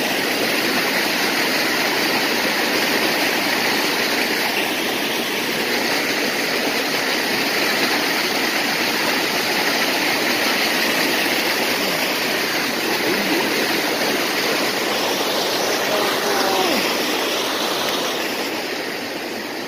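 Fast-flowing mountain creek rushing over rocks in a steady, loud whitewater rush, running too high to ford. The rush eases slightly near the end.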